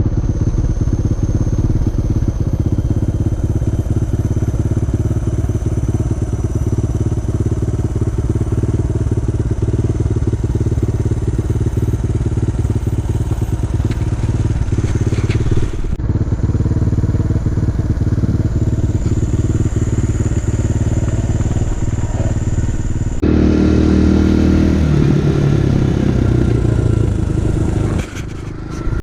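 Kawasaki KLX150 dual-purpose dirt bike's single-cylinder engine running steadily under way. The sound changes abruptly twice; after the second change the engine pitch rises and steps up for a couple of seconds.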